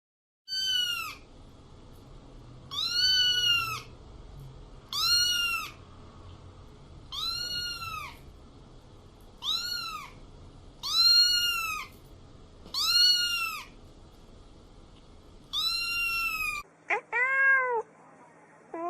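A kitten meowing over and over: eight high, arched meows, rising then falling in pitch, about two seconds apart. Near the end a lower-pitched cat gives two quicker meows.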